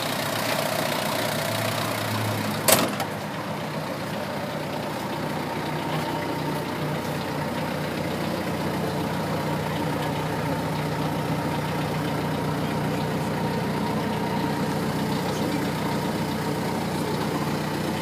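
Toyota 8FDJF35 forklift's 3Z engine idling steadily, with one sharp click about three seconds in.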